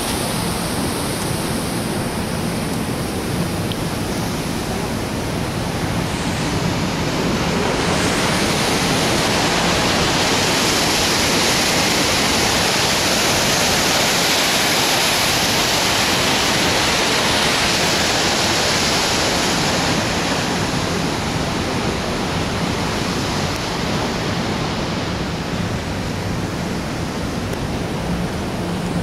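Steady roar of water pouring down a large hydroelectric dam's spillway, swelling louder for several seconds in the middle.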